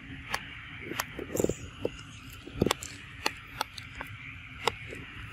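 Scattered sharp clicks and taps close to the microphone, about seven in five seconds, from a young macaque moving about right at the camera. They sit over a steady hiss of forest background.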